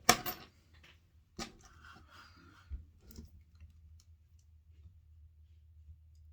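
Hard parts being handled and set down on a workbench: a sharp knock at the start, another about a second and a half in, then a few softer clicks and some rustling over a low steady hum.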